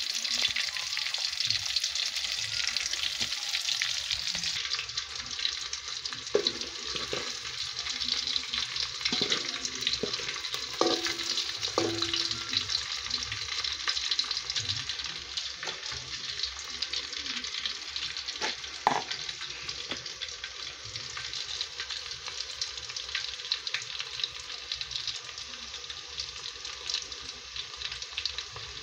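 Sliced red onions frying in hot oil in an aluminium pot: a steady sizzle made of dense fine crackles, with a few louder pops, the sharpest about two-thirds of the way through.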